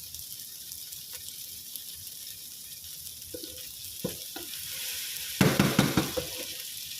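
Chopped vegetables sizzling in a frying pan while being stirred, with a few knocks of the utensil against the pan and a louder rush of sizzling and scraping about five and a half seconds in.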